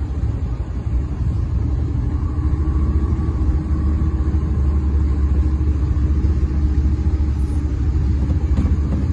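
Small boat's motor running steadily as it moves through floodwater, under a loud low rumble of wind buffeting the microphone.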